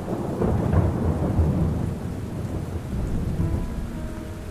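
Rolling thunder over steady rain. The low rumble is strongest in the first second or two and then slowly fades under the rain.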